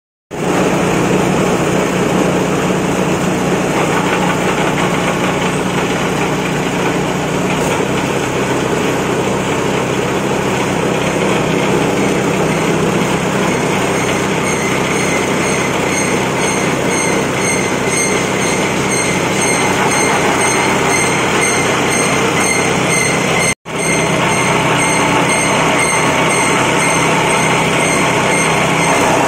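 Straw and coconut-husk chopper machine running at steady speed with a loud, constant mechanical din. It cuts out for an instant about two-thirds of the way through, then resumes. From about halfway, a faint high ticking repeats at an even pace over the din.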